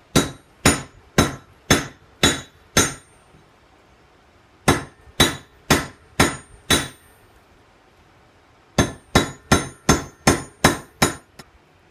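Hand hammer striking a hot railroad spike on an anvil in three runs of blows (six, five, then seven), about two a second, each with a bright metallic ring. The hammering is forge-welding a fluxed hairline crack in the spike's head shut at welding heat.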